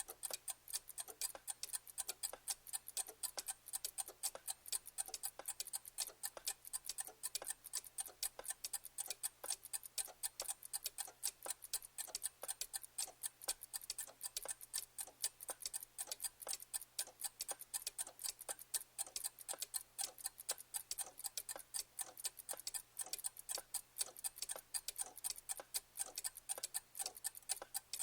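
Clock ticking: a steady run of rapid, even, sharp ticks.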